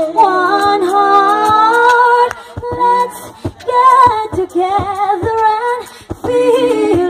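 A cappella vocal group singing in harmony through a PA, several voices holding and sliding between long notes, dropping back briefly about two and a half seconds in and again near the end.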